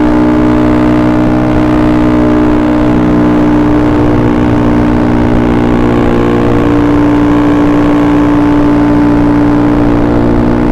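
Honda Beat carburettor scooter's single-cylinder engine running at a steady speed, its note holding nearly unchanged.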